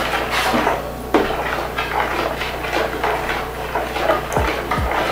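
A spoon scraping and clinking against the sides of a mixing bowl while melted oils for soap are stirred, with a sharper clink about a second in. Two low thumps come near the end.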